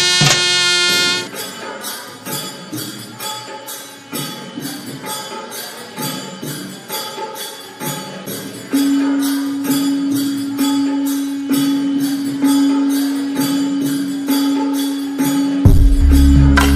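Music with jingling, tambourine-like percussion keeping a steady beat of about three strikes a second. A sustained, pulsing tone joins about nine seconds in, and deep bass comes in near the end.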